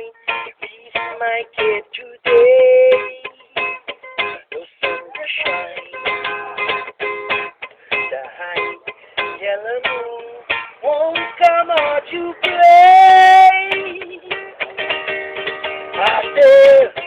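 Music: a plucked string instrument playing a melody of quick separate notes, with a few louder held notes, the loudest near the end.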